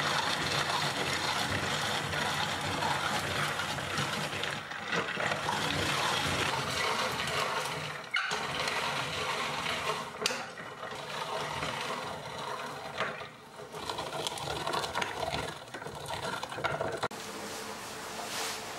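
Hand-cranked rotary drum grater grinding nuts into a bowl: a continuous rasping whir as the handle turns, with a few brief breaks in the cranking.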